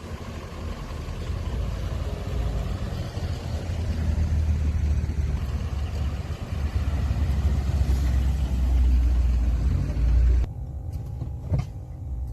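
Vehicle engine rumbling while driving, building in level over about ten seconds. It cuts off suddenly near the end and gives way to a quieter stretch with a few sharp clicks.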